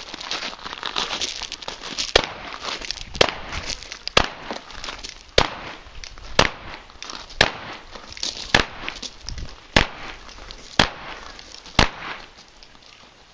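Ten shots from a 12-gauge Mossberg 500 pump-action shotgun loaded with number 7 birdshot, fired at a steady pace of about one a second, with a crackling rustle between the shots.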